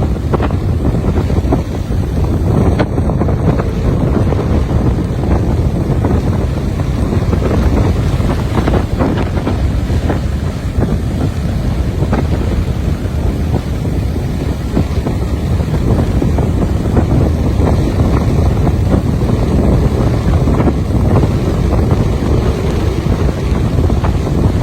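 Strong wind buffeting the microphone with a steady low rumble, over the wash of a rough, choppy sea breaking on a beach.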